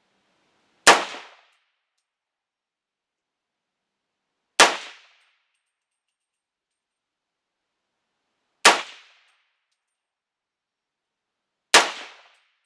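Four single shots from a 300 Blackout AR-style rifle, fired slowly about three to four seconds apart, each a sharp crack with a short dying tail.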